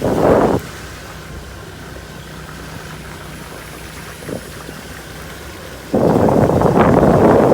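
Motor scooter riding along: steady engine and road noise, with heavy wind buffeting the microphone for half a second at the start and again for the last second and a half.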